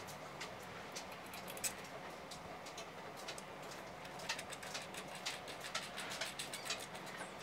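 Small irregular metal clicks and taps of a bolt, nut and washer being handled and threaded by hand into a steel angle bracket, over a faint steady hum.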